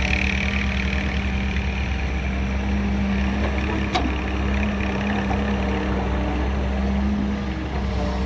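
Heavy diesel machinery engine running steadily at a low, even speed, with a single short click about four seconds in.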